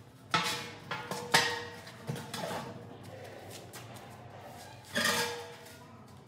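Empty galvanized steel air receiver tank being rocked and walked across a concrete floor: its base scrapes and knocks, and the hollow tank rings out in metallic clangs. The loudest clangs come about a third of a second in, just after a second in, and about five seconds in.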